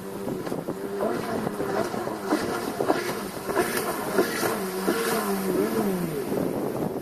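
Sea-Doo SPX jet ski's two-stroke engine revving, its pitch swinging up and down over and over under quick throttle changes, with a falling pitch near the end.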